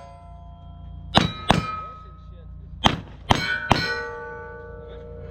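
Pistol shots at steel targets, each followed by the ring of a struck steel plate. There are two quick shots about a second in, then three more over the next few seconds, and the plates go on ringing after each hit.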